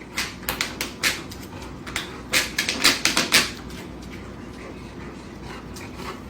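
A quick, irregular series of clattering knocks, loudest about two and a half to three and a half seconds in, then dying away over a steady low hum.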